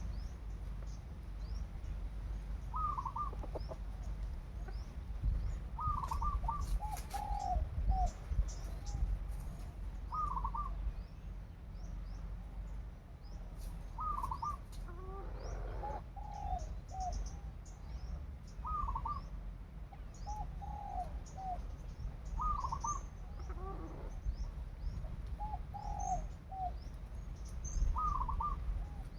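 A bird repeating a short call of a few notes every three to four seconds, with small birds chirping faintly and a steady low rumble underneath.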